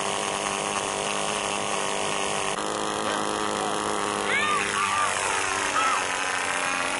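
Small model-aircraft motor droning steadily. About halfway through, its pitch drops as it passes by, and a few short chirps sound over it.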